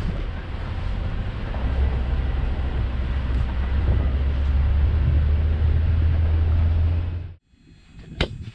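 Vehicle driving over a rough dirt track at night: a steady low engine and tyre rumble with road and wind noise. It cuts off suddenly near the end, followed by a single sharp smack of a volleyball being hit.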